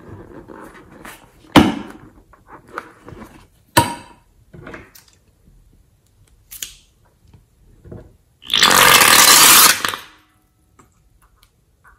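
Rubber balloon being handled and cut open at the neck, with light rubbery handling noise and two sharp clicks, then orange liquid gushing out of the balloon into a glass bowl for about a second and a half, frothing as it lands; the gush is the loudest sound.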